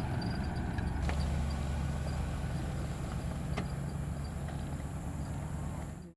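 Car engine running steadily at idle.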